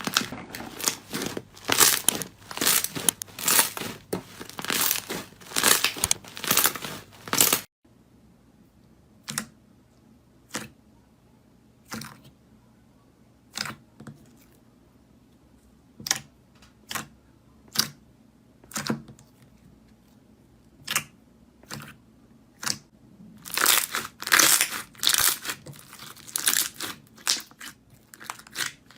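Slime being squeezed and stretched by hand: a dense run of crackling and popping. After about eight seconds it cuts to single sharp pops roughly every second. Dense crackling returns near the end.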